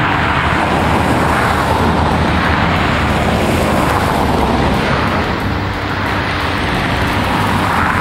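Cars driving past on a road one after another, their tyre and engine noise swelling and fading as each goes by, over steady background music.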